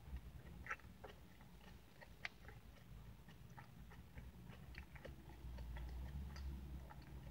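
Close-miked chewing of a mouthful of Dutch apple pie with crumbly streusel topping: faint scattered wet clicks and small crunches, over a low rumble that swells for a moment near the end.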